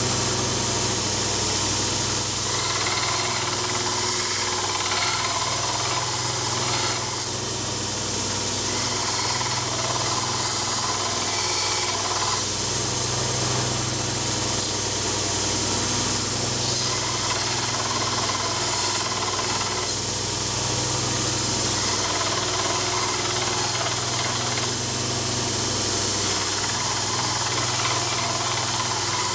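Electric belt grinder running steadily, with spells of grinding as a steel axe head is pressed against the moving belt.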